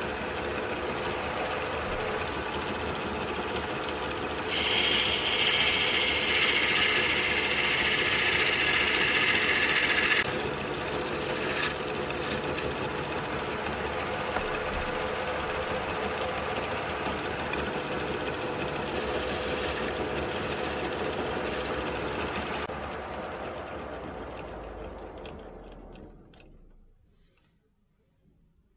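Wood lathe running with a steady motor hum while a turning tool cuts the spinning wood. The cutting hiss is loudest from about five to ten seconds in. Near the end the lathe winds down and falls silent.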